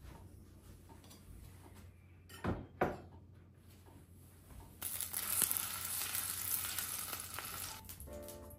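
Two sharp knocks close together, then about three seconds of loud sizzling, as of food frying in a hot pan. Music begins near the end.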